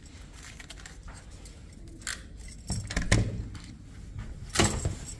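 Clicks and clunks of a hotel room door's electronic lock and lever handle as the door is worked open: a few light clicks, then two louder clunks about three seconds in and near the end.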